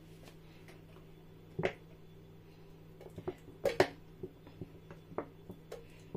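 Plastic squeeze bottle of tomato paste being squeezed over an empty pot: a string of short squelches and splutters as blobs of paste are forced out and drop onto the pan, the loudest a little past halfway, over a low steady hum.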